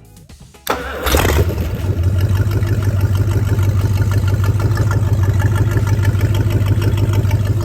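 Freshly overhauled Chrysler 360 V8 marine engine firing up about three quarters of a second in and then running steadily at a fast idle. It is a brief dry test fire, run before any cooling water is hooked up.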